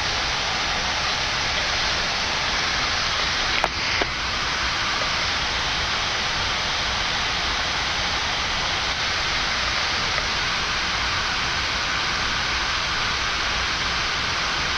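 Steady, even rushing noise inside an airliner on the ground, with a brief click and a short dip about four seconds in.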